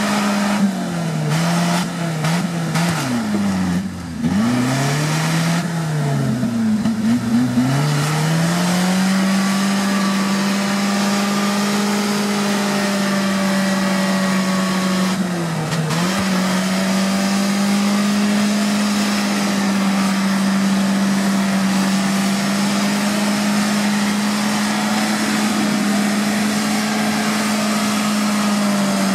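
Suzuki Samurai's engine revving hard under load in deep mud, held mostly at steady high revs. The revs drop and climb back several times in the first eight seconds and dip once more a little past halfway.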